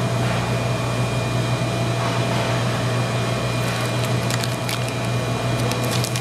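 Steady low machine hum with a faint steady high whine: the background noise of a commercial kitchen. In the second half come a few light crinkles of the plastic piping bag being handled.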